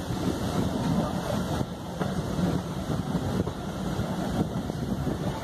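Steady running noise of a train coach moving along the track, heard with the microphone held out of the carriage window and wind buffeting it.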